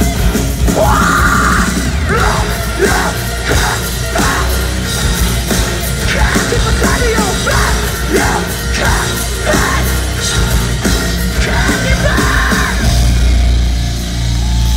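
Live heavy rock band playing loudly through a concert PA: drums, distorted guitar and bass, with yelling over it.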